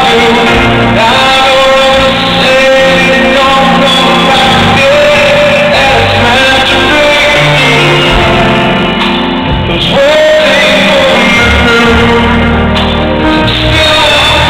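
Live band playing a ballad, with a male lead vocal held over sustained chords. The music is loud and echoing, recorded from within the audience in a large hall.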